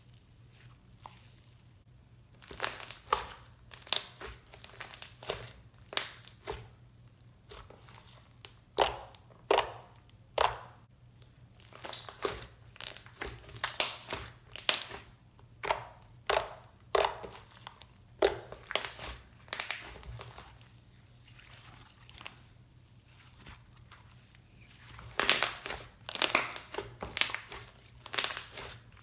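Icy-jelly hybrid slime, made from clear glue, borax and instant snow powder, being squished and pressed by hand, giving irregular bursts of sharp crackling. The crackles come in clusters after a quiet first couple of seconds, with a dense run near the end.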